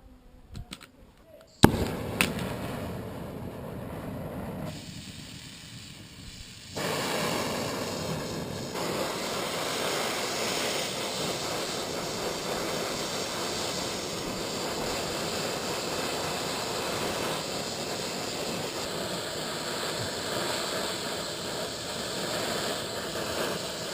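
A brazing torch flame hissing steadily as it heats cracked cast iron, starting with a sharp pop about a second and a half in and growing louder about seven seconds in.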